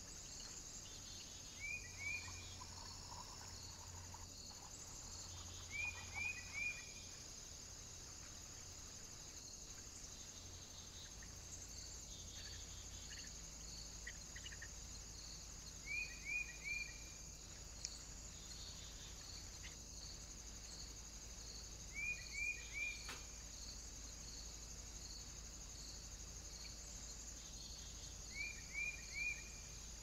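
Woodland ambience: a steady high insect trill. Every five or six seconds comes a quick group of two or three short, falling bird chirps, which are the loudest sounds.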